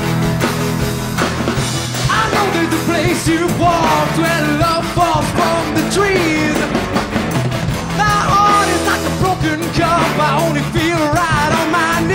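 Live rock band playing: electric guitars and drums under sung vocals that glide up and down, with no clear words, starting about two seconds in.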